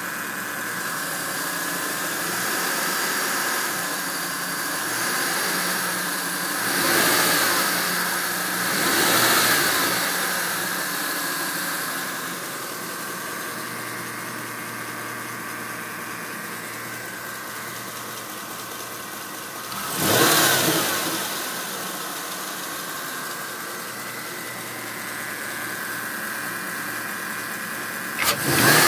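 2011 Chevrolet Camaro SS's 6.2-litre L99 V8 idling with a steady high-pitched whine, the throttle blipped briefly four times. The whine is the strange noise the owner suspects may come from the alternator.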